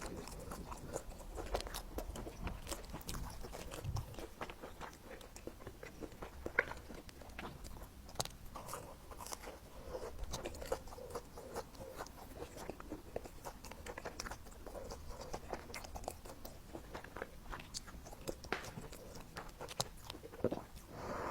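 A person biting and chewing food close to the microphone, with many irregular sharp clicks and wet mouth sounds.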